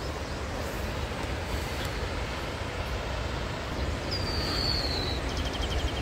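Steady rushing outdoor noise, with a single high whistle from a bird, falling in pitch, about four seconds in.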